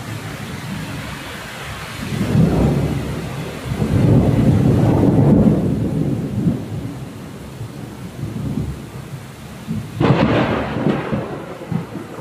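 Thunder rumbling over steady rain: long low rolls about two and four seconds in, then a sudden sharper clap about ten seconds in.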